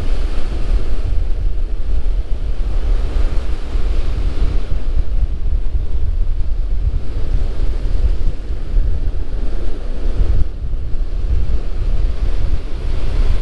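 Ocean surf breaking and washing up the beach, swelling and fading several times, under a loud low rumble of wind buffeting the microphone.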